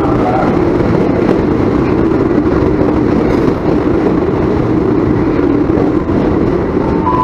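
KRL Commuter Line electric train rolling along the platform as it pulls into the station: a loud, steady rumble of wheels on rail.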